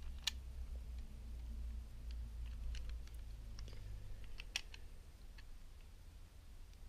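Scattered light clicks and taps of plastic toy parts being handled and fitted together on a Transformers action figure, over a faint low hum.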